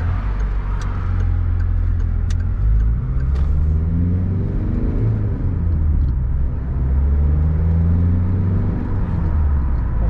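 Steady low rumble of engine and tyres inside a Citroën's cabin on the move, with the engine note rising twice as the car gathers speed. A few faint ticks come in the first few seconds.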